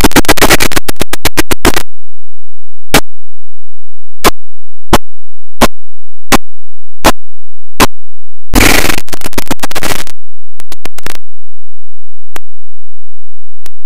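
Harsh, heavily distorted glitch noise that breaks up into a fast run of sharp clicks, then single clicks spaced well apart. About eight and a half seconds in, a second distorted burst cuts in and breaks up the same way into sparser clicks.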